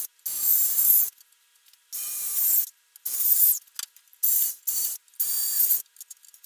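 Cordless drill running in about five short bursts, each under a second, driving screws through wooden uprights into cross beams.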